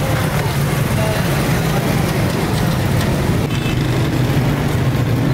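Steady street traffic noise: a continuous low engine drone from passing motorcycles and other vehicles.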